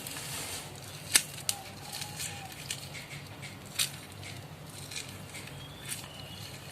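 Lime being squeezed over washed raw chicken pieces: quiet handling with a few sharp clicks and taps, the loudest about a second in and near four seconds in.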